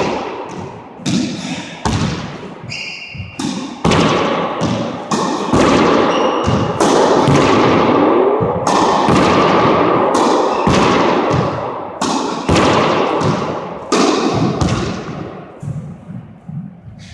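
A rubber ball struck with a racquet and rebounding off the walls and floor of an enclosed court: a quick run of sharp, echoing hits, one or two a second, that grow fainter and stop near the end.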